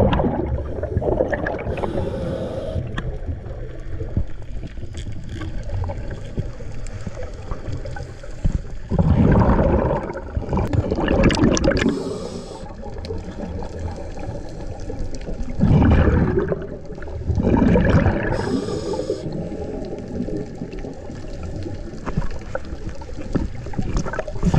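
Scuba diver breathing underwater through a regulator: loud bubbling bursts of exhaled air a few times, with short high hisses of inhaled air between them.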